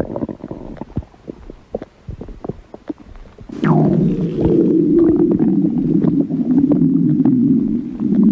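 Human stomach growling: scattered small gurgles and pops at first, then about three and a half seconds in a loud, long rumble starts suddenly with a brief falling squeal and carries on to the end.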